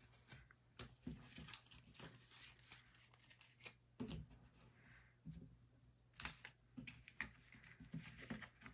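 Faint, scattered soft clicks and taps of cardboard trading cards being flipped through and laid down on a table by hand, over a faint steady low hum.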